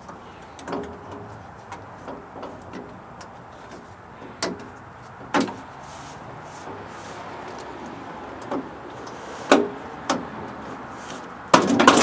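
Scattered light clicks and knocks of metal trim clips and chrome trim being handled and pressed onto a truck door, with a cluster of louder knocks near the end.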